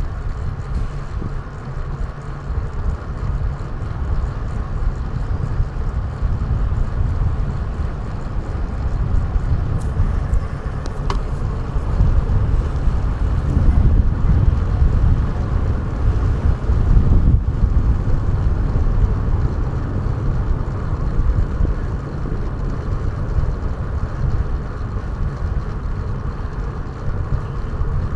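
Steady wind buffeting on an action camera's microphone while riding, with rumbling road and traffic noise underneath.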